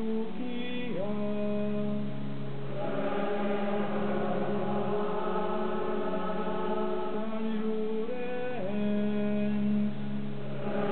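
A church choir singing a slow liturgical chant in long held notes, the chord shifting about a second in and again near the end, heard through a television's speaker.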